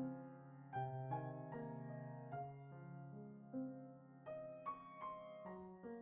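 Slow, gentle background piano music: single notes and chords struck about every half second to a second and left to ring.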